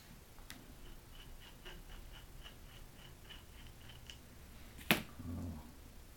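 Light handling noises from bench grinder parts being assembled: a run of faint, even ticks about four a second, then one sharp click and a short dull knock near the end.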